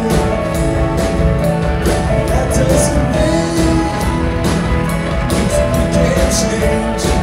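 Live rock band playing loudly: electric guitars, bass guitar, drums with regular cymbal hits, and keyboards, recorded from the audience.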